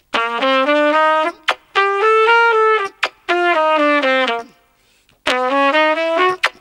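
Trumpet playing a five-note pattern slowly: four short phrases of stepwise notes, separated by brief gaps, each gap holding a short click.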